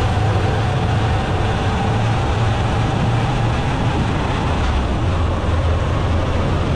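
Motorcycle riding at a steady speed through a rock-cut tunnel: the engine running evenly under dense wind and road noise, heaviest in the low end.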